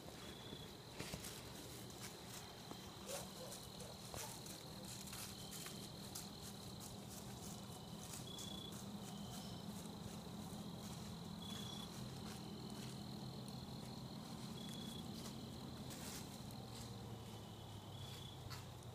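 Crickets calling faintly: one steady high trill that stops near the end, with short chirps from another cricket repeating every second or two. Scattered soft clicks and rustles sound beneath them.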